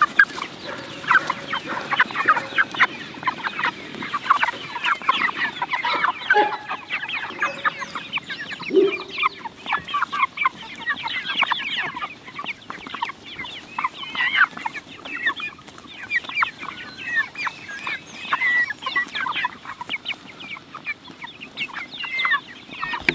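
A flock of meat chickens peeping and clucking, many short high calls overlapping without a break.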